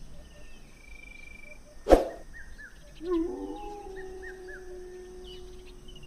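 A single sharp knock, then an animal's long drawn-out call that rises briefly and holds one steady pitch for a couple of seconds. Faint bird chirps repeat in the background.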